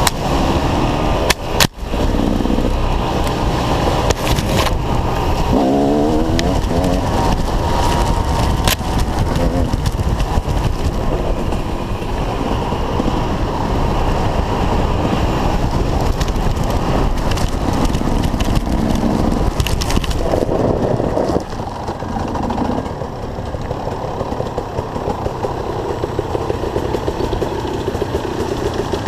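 Dirt bike engines running and revving, the pitch rising and falling repeatedly. There are a couple of sharp knocks about a second and a half in.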